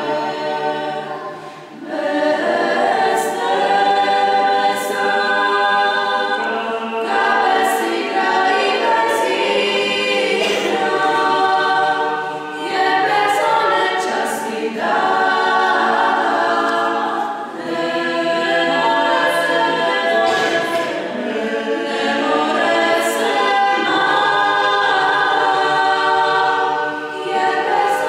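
An a cappella vocal ensemble singing in sustained harmony, in phrases a few seconds long with short breaks between them, including one about a second in.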